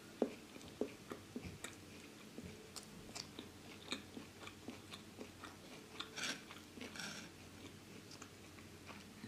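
A person chewing fried chicken and rice eaten by hand: soft, irregular mouth clicks and smacks, with two brief hissing sounds a little past halfway.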